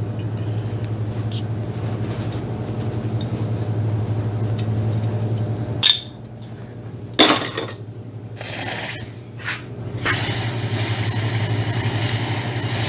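A steady machine hum in a metal shop cuts out about six seconds in and comes back about ten seconds in. Two sharp metallic clanks, a second or so apart, fall in the gap, along with the clinks and scrapes of steel being handled.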